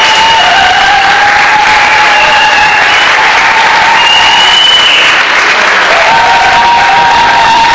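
Audience applauding loudly and steadily, with voices holding long cheers over the clapping.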